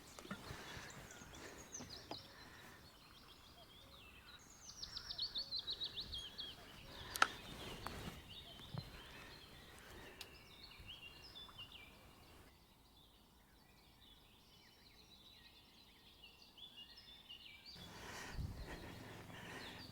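Songbirds singing faintly: a quick run of short repeated high notes about five seconds in, then scattered chirps later on. A single sharp click about seven seconds in.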